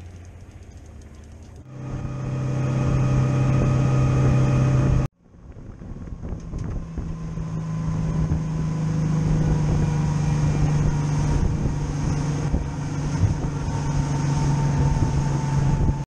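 Boat engine running steadily under way, with wind and rushing water. The sound cuts off abruptly about five seconds in, then builds back up and holds as the boat runs at speed.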